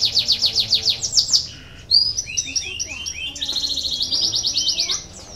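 Domestic canary singing. It starts with a fast rolling trill of repeated falling notes, breaks briefly, then runs through varied chirps and whistles, and ends with a second, faster trill.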